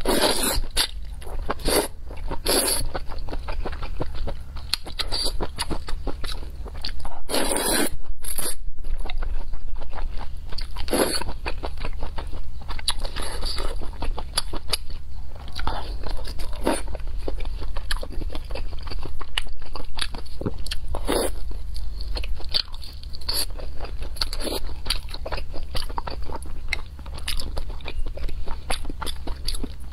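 Close-miked eating of spicy noodle soup: noodles slurped from chopsticks and mouthfuls chewed, in an irregular run of short, loud mouth noises.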